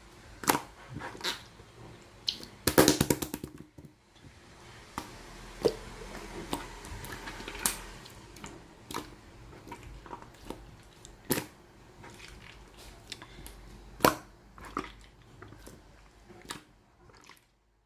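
Translucent, colourless slime being squished and pressed by hand, making sticky clicks and pops, with a quick run of crackling pops about three seconds in.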